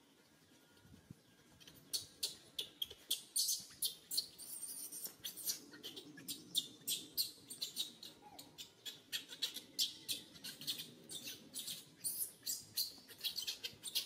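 Rapid, high-pitched squeaks or chirps, several a second, starting about two seconds in and running on in an uneven stream.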